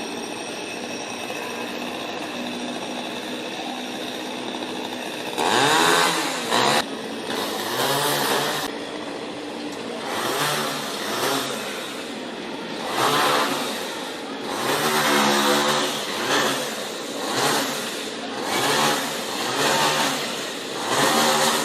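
Chainsaw engine running steadily for about five seconds, then revved up and down again and again, with about ten surges in pitch and loudness.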